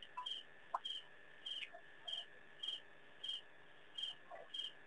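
A cricket chirping steadily, about two short chirps a second, over a constant thin high tone, with a few faint clicks.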